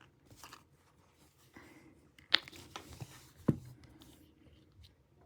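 Pry pick working between an iPhone 7's screen and frame against stubborn adhesive: light scraping with two sharp clicks, about two and a half and three and a half seconds in.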